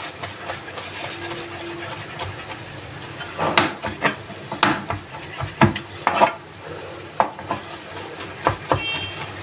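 Chef's knife chopping soft, oven-roasted, skinned bell pepper on a plastic cutting board: irregular knocks of the blade on the board start a few seconds in and come quicker near the end, over a steady hiss.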